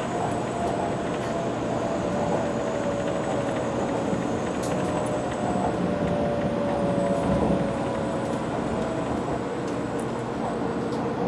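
Cabin noise inside a Kyushu Shinkansen 800 Series train: a steady rumble and rush, with a faint whine that slowly drops in pitch as the train slows for its final stop.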